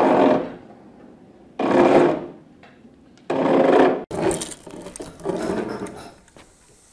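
A pump-maker's side-cutting iron reamer scraping through the bore of an oak trunk as it is turned by hand with a wooden crank, shaving the wood off layer by layer. Three loud scraping strokes come about a second and a half apart, then a softer, rougher scraping follows.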